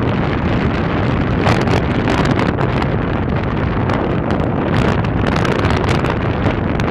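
Wind buffeting the microphone of a moving car, in short gusts over steady road and engine noise.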